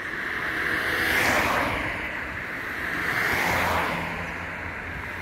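A distant helicopter heard as a rushing noise that swells and fades about every two seconds, with a low hum under it from about three seconds in.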